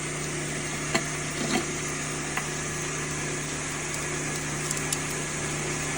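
Steady low machine hum, like an electric motor running, with a few faint light taps in the first few seconds.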